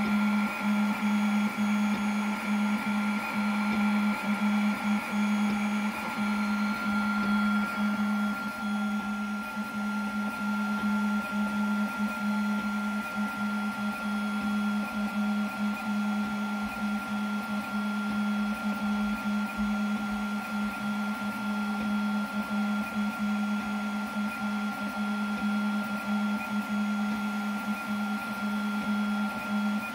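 Snapmaker 2.0 A150 laser engraver running a job on plywood: its stepper motors drive the laser head in a steady low hum that breaks off briefly many times as the moves change. A steady high tone runs underneath.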